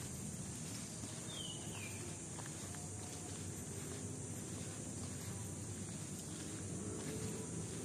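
Outdoor ambience after rain: a steady high insect drone over a low rumble, with two short falling bird chirps about a second and a half in. Faint footsteps on wet pavement.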